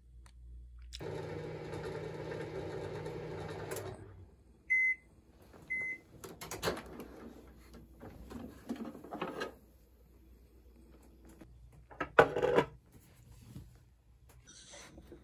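Microwave oven running with a steady hum for about three seconds, then two short beeps as it finishes. Then the door is opened and the ceramic plate is handled with light clicks and clatter, with a sharp clink of tableware, the loudest sound, near the end.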